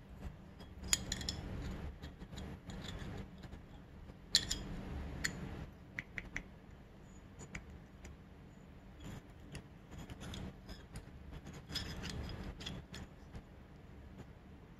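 Small metal carburetor parts being handled and fitted together: a Keihin FCR throttle slide and its plate, with a few sharp clicks and short bouts of light scraping.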